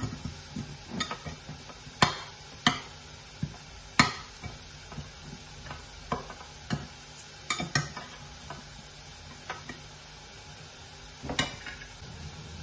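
Metal slotted spatula scraping and knocking against a glass baking dish as baked cauliflower is lifted out. It makes a string of irregular sharp clinks and scrapes, the loudest about two and four seconds in.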